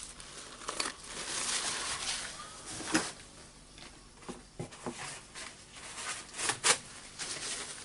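Handling noise of small parts of a dismantled rotary hammer being worked on at a bench. Scattered light clicks and knocks come from parts being moved and set down, the sharpest about three seconds in and twice close together near the end, between stretches of soft rustling.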